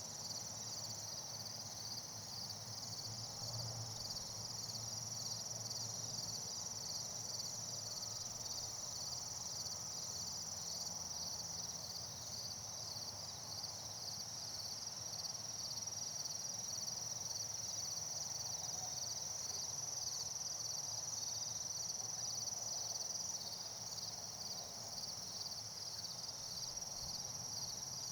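Outdoor chorus of insects such as crickets: a steady high-pitched trill with a fast, evenly pulsing chirping layered just below it.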